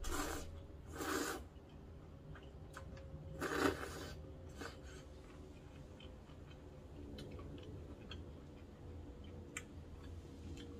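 Buckwheat noodles slurped into the mouth in three loud bursts within the first four seconds, followed by quieter chewing with small wet clicks.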